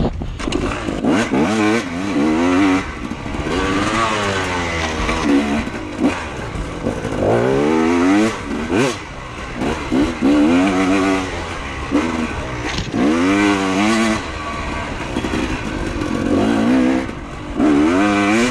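Off-road motorcycle engine revving up and down over and over as the rider works the throttle on a rough uphill dirt trail, with a few sharp knocks mixed in.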